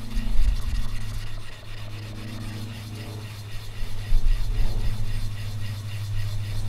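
A small lump of cast metal rubbed back and forth on a wet flat grinding stone: a rasping scrape in quick, repeated strokes, grinding a face on the metal to show its colour.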